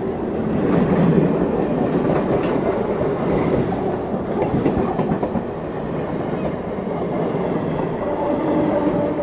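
An EMU local train passing close by on the adjacent track: a loud, steady rush of coaches going past, with repeated wheel clatter over the rail joints and a sharp click about two and a half seconds in.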